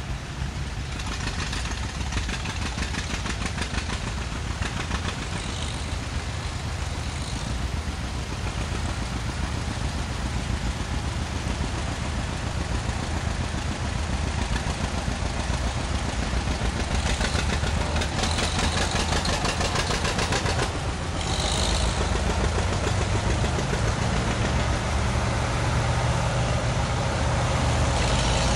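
Vintage farm tractors, among them a Ford N-series, an Oliver and two-cylinder John Deeres, passing one after another with their engines running steadily. A deeper, louder engine sound builds over the last several seconds.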